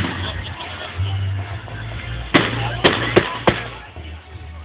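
Salute fireworks going off: four sharp bangs in quick succession a little past halfway through, over a steady background of outdoor noise and low rumble.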